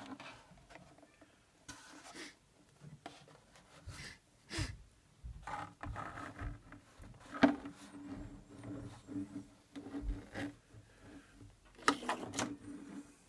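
Hands handling a hollow 3D-printed plastic hull: irregular knocks, taps and rubbing against the plastic shell, the sharpest knocks a little past the middle and near the end, over a faint steady low hum.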